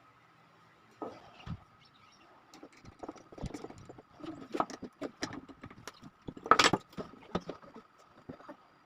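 Irregular light knocks and clicks of wooden pieces and hand tools being handled, with the loudest knock about two-thirds of the way through.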